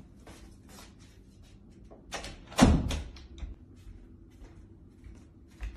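A door shut with a single loud thud about halfway through, amid a scatter of smaller knocks and clicks.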